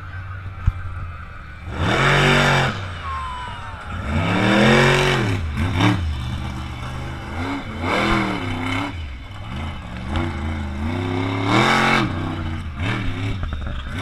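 Monster truck engine revving hard in repeated bursts, each one rising and falling in pitch, with the loudest revs about two seconds in, around five seconds in and near twelve seconds.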